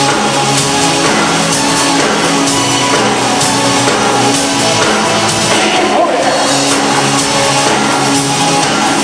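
Loud live rock music with electric guitar and drum kit.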